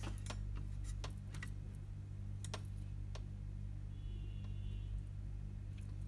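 Steady low electrical hum with a handful of light clicks and taps, most in the first three seconds, as a soldering iron and small tools are handled at an electronics repair bench.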